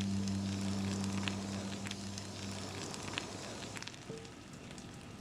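A large fire burning through timber: a steady rushing noise with occasional sharp crackles. Under it, a low steady hum fades out about halfway through.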